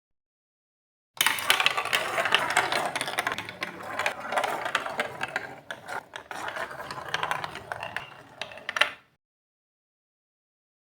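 Marbles rolling and clattering down a plastic Lego Duplo block track: a dense run of clicks and rattles that starts about a second in and stops abruptly near nine seconds.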